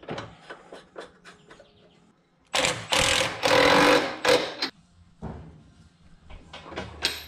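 Light metal clinks of suspension hardware and a bolt being handled. About two and a half seconds in, a power impact wrench runs a control-arm support bolt in with a loud burst of about two seconds, followed by a few quieter, shorter bursts and clicks.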